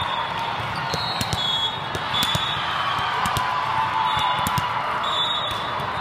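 Volleyball tournament hall ambience: repeated sharp smacks of volleyballs bouncing and being struck on the surrounding courts, short high sneaker squeaks on the sport floor, over a steady hall-wide murmur of voices.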